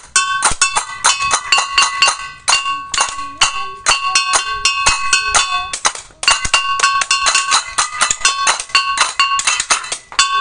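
Balinese gamelan music for a barong procession: a fast, dense clatter of small cymbals over ringing pitched gong-chime tones, with a brief break about six seconds in.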